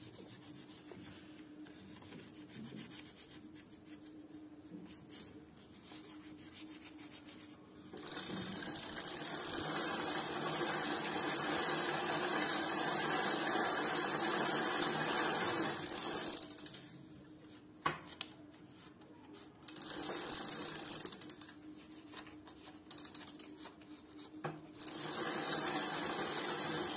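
Cleaning work on a bicycle wheel hub: faint handling noises, then a steady scrubbing hiss for about eight seconds, and two shorter bursts of the same near the end.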